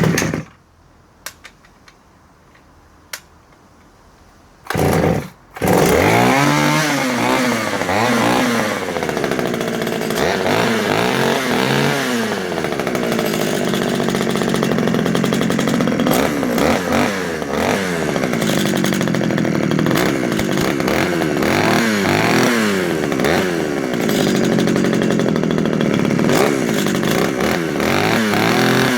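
Pioneer P20 vintage 51cc two-stroke chainsaw, running without its bar and chain. After a few small clicks it fires briefly about five seconds in, catches a moment later, and runs with the throttle blipped repeatedly, its pitch rising and falling over and over.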